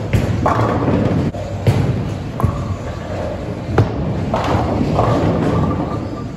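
Bowling alley noise: a steady rumble of balls rolling on the lanes, broken by about four sharp thuds of balls and pins.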